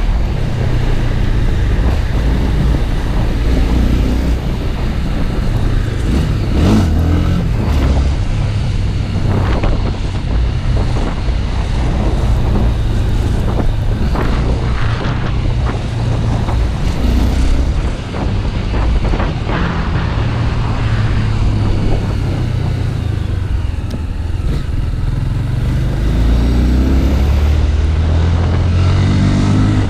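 Single-cylinder Honda Twister motorcycle engine running under way, with steady wind noise over the microphone; the engine pitch climbs near the end as it revs up.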